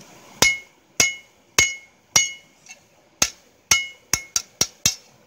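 Hand hammer striking a steel blade flat on an anvil while the tang is forged into shape. About ten metallic blows, each ringing briefly, come roughly every half second, then quicken into a fast run of taps near the end.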